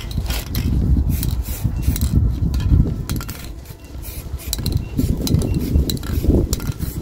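Aerosol can of etch primer being handled and shaken, its mixing ball clinking in short rattles, over a heavy low rumble of wind on the microphone.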